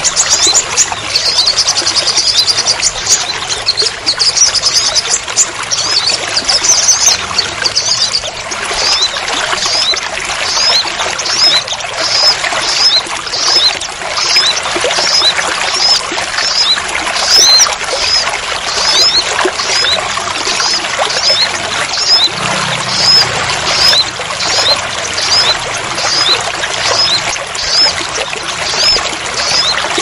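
Heavy rain with water pouring and splashing, a steady rushing hiss. Over it a small bird calls with high chirps: a rapid trill for the first several seconds, then single chirps repeated a little more than once a second.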